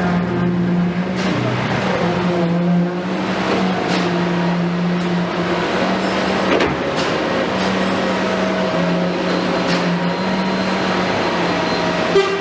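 Komatsu PC210 excavator's diesel engine running steadily while working, its pitch shifting a little, with scattered short knocks and clanks.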